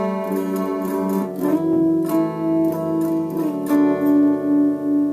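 Guitar in an alternate tuning, playing ringing chords struck every half second or so. The last strike comes about four seconds in and is left to ring.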